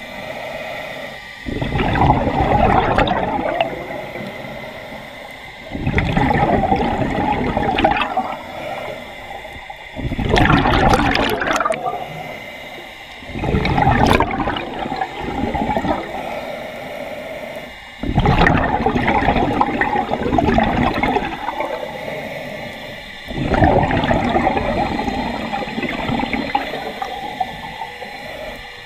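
Scuba diver breathing through a regulator underwater: six loud, gurgling bursts of exhaled bubbles, about every four to five seconds, with quieter stretches between them as the diver inhales.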